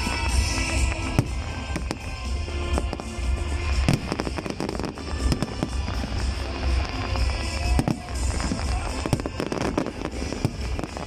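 Fireworks display, with aerial shells bursting overhead in frequent, irregular bangs over music playing throughout.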